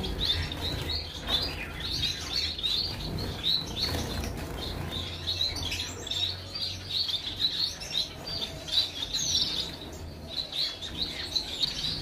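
Caged finches in a bird room chirping: a steady stream of short, high calls from many birds, with some wing fluttering.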